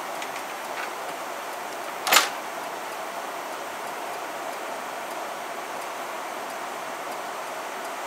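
1990 Heil gas furnace running with its burners lit: a steady hiss, with one sharp click about two seconds in.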